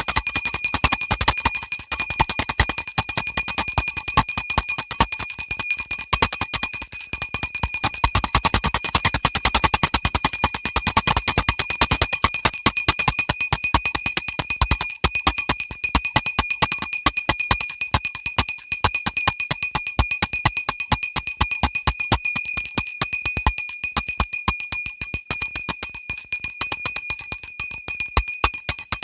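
Small high-pitched worship hand bell rung rapidly and continuously, its clapper striking many times a second with a steady ring held between strikes.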